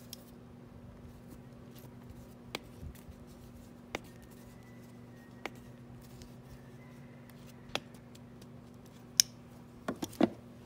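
Scattered sharp clicks and ticks of hands and pliers working a plastic water-screen fitting as it is screwed back into a Mercury four-stroke outboard's powerhead, over a faint steady low hum. The clicks come one or two at a time, a second or two apart, with the sharpest near the end.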